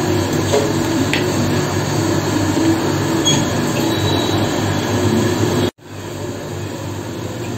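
A steady mechanical hum, like a running fan or appliance. It drops out suddenly for an instant near the end, then goes on quieter.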